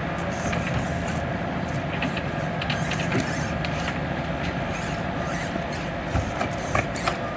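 Tiny electric motor and gear train of a 1/24-scale Axial SCX24 Deadbolt RC crawler whirring steadily as it crawls in low gear, with a few light clicks and ticks of the tyres and chassis on the rocks.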